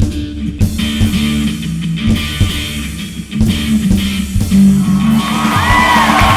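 Rock music with electric guitar, bass guitar and drums. Near the end a high voice cries out over it.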